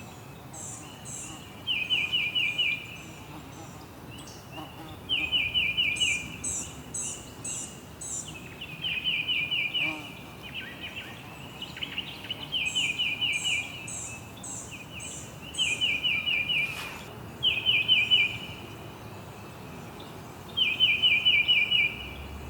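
Songbird chirping in short, rapid trills of about a second each, repeated every two to three seconds, with higher, thinner chirps in between, over a faint steady background hiss.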